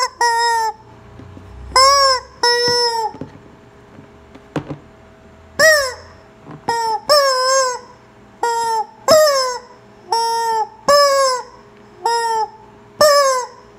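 Yellow rubber screaming-chicken toy squeezed by hand again and again, letting out about a dozen short squawks, some in quick pairs. Each squawk swoops up and then down in pitch.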